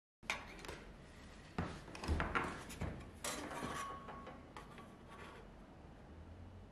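Steel rules and measuring tools being handled on a wooden workbench: several light knocks and clinks, with sliding and rubbing between them.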